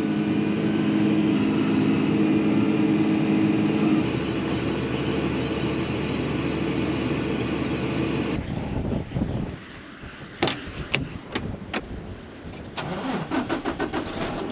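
An engine runs steadily for about eight seconds and then stops abruptly. A few sharp clicks follow, then a grain truck's engine cranks over with a fast rhythmic chugging near the end.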